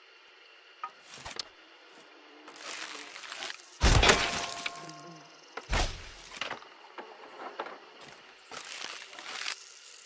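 Bow-and-arrow sounds: sharp loud impacts, the loudest about four seconds in with a brief ringing after it and another near six seconds, with rustling and smaller knocks between.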